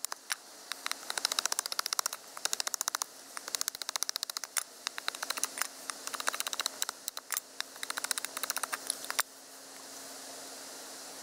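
Steel nata blade scraping along a wooden stick in repeated strokes, each stroke a rapid run of clicks as the edge chatters over the wood. The scraping stops about nine seconds in, leaving a faint steady hum.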